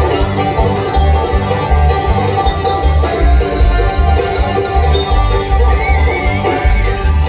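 Live bluegrass band playing, with banjo picking and mandolin over an upright bass keeping a steady beat.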